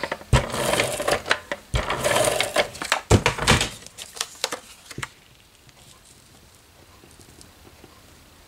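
Handheld tape gun laying double-sided adhesive onto paper, rattling in three short runs over the first four seconds; after that only faint paper handling.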